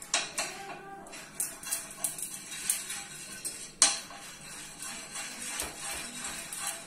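Background music, with light clinks of a utensil against a metal pan as butter is spread over it, one sharp click about four seconds in.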